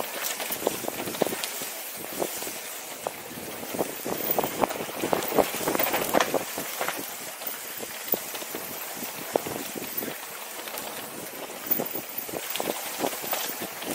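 Mountain bike riding fast downhill on a dry dirt trail: tyres rolling over the dirt with frequent sharp rattles and knocks from the bike over bumps, under a steady rush of wind on the helmet camera. The rattling is busiest about halfway through and again near the end, with a smoother stretch in between.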